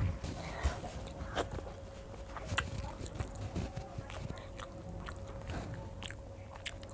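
Close-up eating sounds: chewing and mouth noises, with scattered soft clicks and rustles from fingers mixing rice and picking food on the plates, over a faint steady hum.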